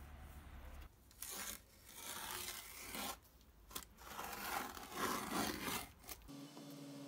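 Utility knife slicing through thin plastic film laid on a board, with the film crinkling. It comes in several strokes, the longest and loudest around five seconds in.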